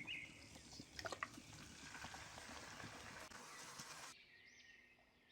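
Faint sizzling as marinated chicken goes into a pan of masala browned in hot oil and ghee. There are a couple of light clicks about a second in, and the sizzle drops away near the end. A bird chirps briefly at the very start.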